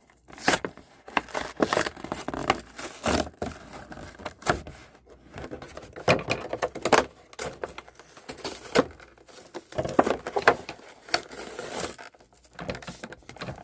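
A doll's retail packaging being handled and opened: irregular crinkling, rustling and tearing.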